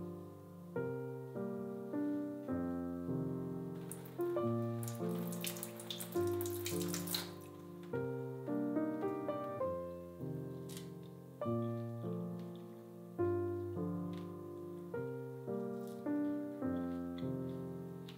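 Gentle solo piano music with slow chords throughout. About four seconds in, water runs from a kitchen tap for around three seconds, then stops.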